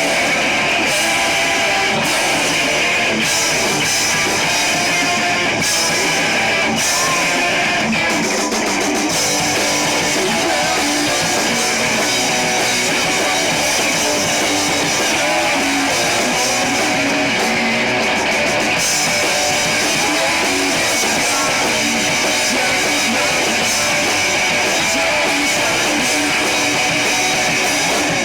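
Live rock band playing: loud distorted electric guitars with a drum kit, as heard on a rough amateur live recording.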